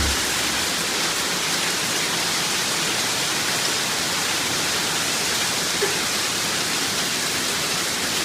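Heavy hailstorm with rain, a dense steady hiss of hailstones pelting down.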